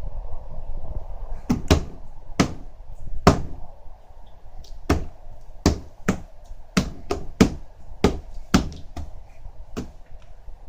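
A hand tapping a tabletop like a drum: about fourteen sharp knocks at an uneven, wandering rhythm, starting about a second and a half in and stopping shortly before the end.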